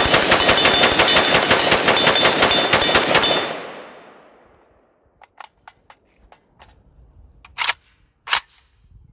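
Romanian PM90 Long AK-pattern rifle fired in a fast string of shots. The shooting stops about three seconds in and the echo dies away. Then come a few light clicks and two sharper clacks as the rifle is handled.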